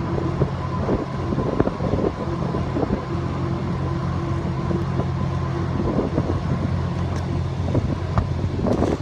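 Heavy machinery running with a steady low drone and a faint high steady tone, with scattered metallic clanks and rattles throughout.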